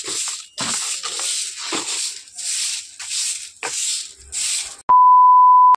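A broom sweeping a dusty cement floor in quick strokes, about two a second, each a short scratchy swish. Near the end a loud steady beep on one pitch comes in, holds for just under a second, then cuts off.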